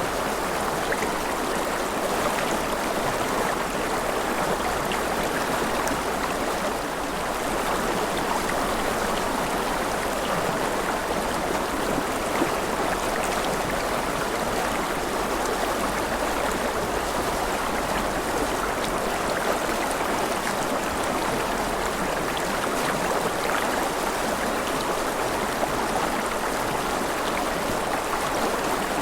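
A steady, even wash of water noise, unchanging throughout, with faint scattered light ticks like drops.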